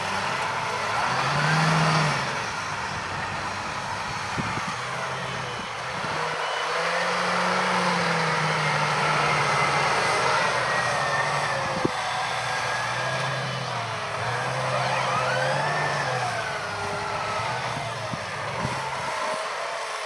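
John Deere 8345R tractor's diesel engine working under load as it pulls a field cultivator through the soil. The engine note wavers up and down as the tractor passes, with a few sharp clicks along the way.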